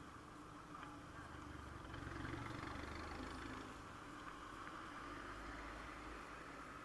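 A passing vehicle: a low engine rumble swells about two seconds in and slowly fades, over a steady faint high drone.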